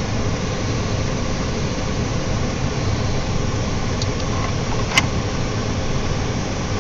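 Steady engine and road noise heard inside a slow-moving car's cabin, with a single sharp click about five seconds in.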